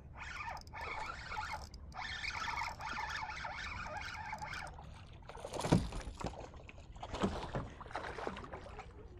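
Fishing reel whirring steadily as line is worked in during a fight with a hooked snook, then a few sharp splashes and knocks about halfway through, as the fish thrashes near the kayak.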